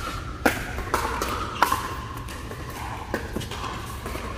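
Pickleball rally: plastic ball struck back and forth with paddles, a run of sharp hollow pops under a second apart, the loudest about a second and a half in, over the murmur of a large indoor hall.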